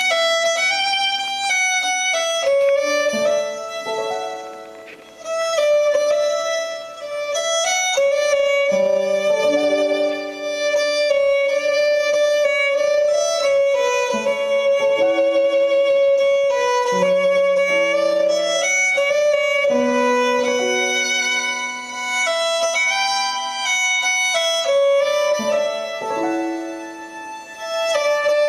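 Scottish instrumental background music led by a fiddle, with a high note held for long stretches over a moving lower line.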